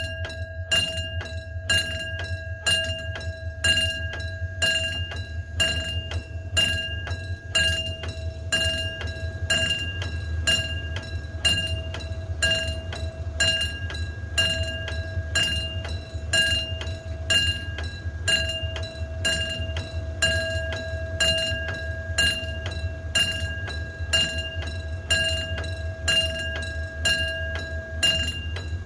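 Railway level-crossing warning bell ringing: a fast, evenly spaced run of metallic dings at a fixed pitch, over a low steady hum.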